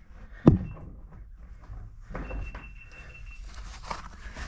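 A sharp knock about half a second in, then scattered scuffing and softer knocks: a caver's boots and gear against rock while moving through a tight passage.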